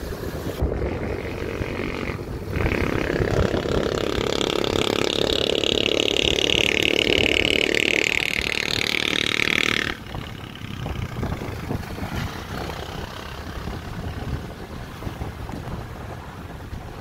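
Wind and road noise from a moving car, a steady rumble and rush. It grows louder and brighter for several seconds in the middle, then drops off abruptly about ten seconds in.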